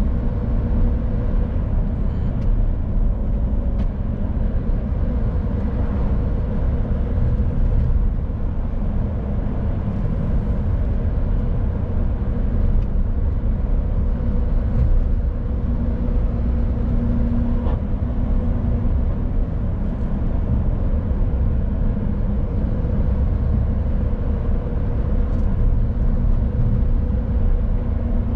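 Mercedes Actros truck on the move: a steady low rumble of engine and road noise with an even hum over it.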